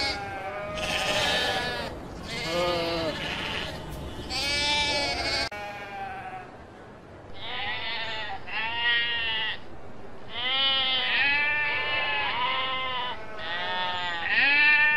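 A flock of sheep bleating, many calls overlapping one after another with only short gaps. About five seconds in, the recording cuts abruptly, and after the cut the bleats sound duller.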